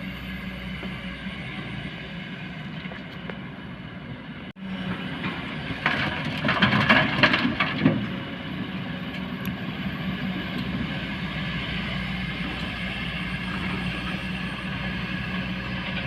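Kobelco excavator's diesel engine running steadily, with a burst of louder clattering and scraping about six to eight seconds in as it works. The sound drops out for an instant just past four seconds.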